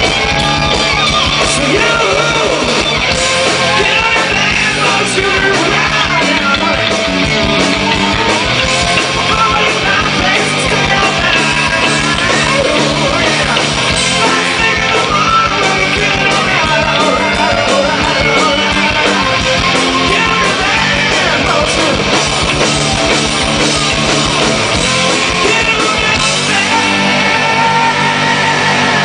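Live rock band playing loudly: electric guitar leads with bending, wavering notes over bass and drums.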